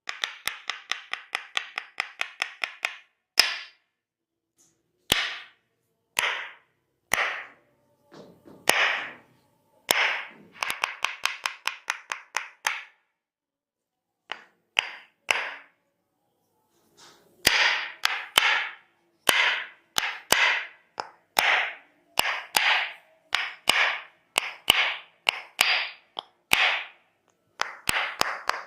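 Percussive massage strikes: quick, sharp taps at about seven a second at the start and again in the middle, and slower, fuller single strikes about one to two a second through the second half.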